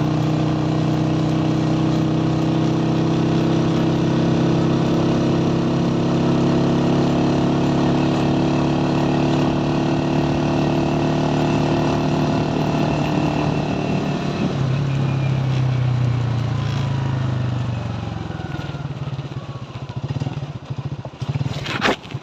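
Motorcycle engine running steadily under way. About two-thirds of the way in its note drops, and over the last few seconds it falls lower and quieter, with a few sharp clicks near the end.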